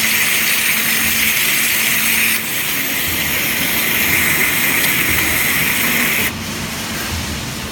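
High-pressure waterjet cutting machine hissing steadily as the jet cuts mirror glass, over a faint low steady hum. The hiss dips a little about two seconds in and drops off sharply about six seconds in.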